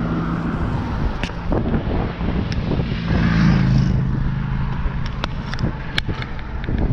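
Wind buffeting the microphone and tyre rumble while riding an e-bike on asphalt, with a low steady hum that swells about halfway through, and scattered light clicks and rattles.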